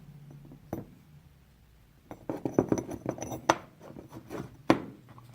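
Metal hand tools clinking and clicking as they are handled: one click under a second in, a quick irregular run of sharp clinks from about two seconds, and a single louder clink near the end.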